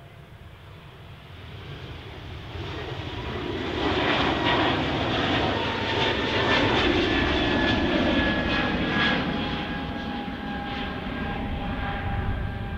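Airbus A220-300's Pratt & Whitney PW1500G geared turbofan engines at take-off thrust as the jet climbs away after a touch-and-go. The engine noise builds over the first few seconds to a loud, crackling peak and then eases off, with a high whine that drops slightly in pitch as the aircraft passes and recedes.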